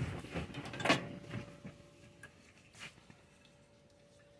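A few soft knocks and rustles in the first second and a half, then quiet kitchen room tone with a faint steady hum and a few tiny ticks.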